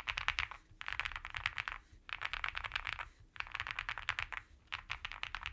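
Fast typing on a QK100 gasket-mounted mechanical keyboard with a polycarbonate plate, full foam and TUT Night Owl keycaps, its linear switches built from Bsun RAW stems and springs in Cherry MX Black housings. The keystrokes come in five quick runs with short pauses between them.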